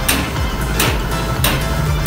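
Background music with a steady beat: a sharp stroke about every two-thirds of a second over a sliding deep bass line.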